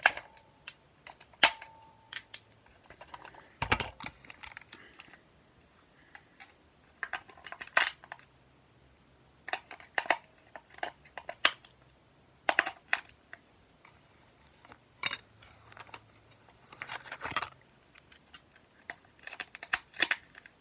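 Scattered sharp clicks and clacks of small hard objects being handled, coming in small irregular clusters, with a short steady tone about a second and a half in.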